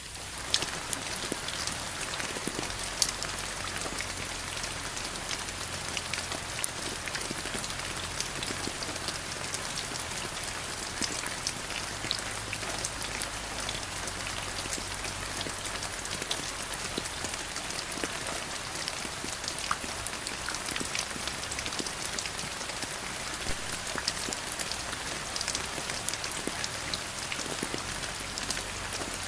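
Steady rain falling on a surface, a dense even hiss dotted with many individual drop ticks.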